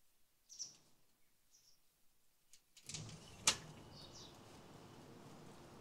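A few short bird chirps, then a glazed wooden front door pulled shut, its latch clicking sharply about three and a half seconds in.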